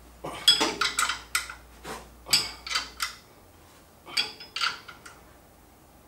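Sharp metallic clinks of a wrench working the bolts on a Ford 9-inch rear axle housing end as they are tightened, in three short clusters of clicks.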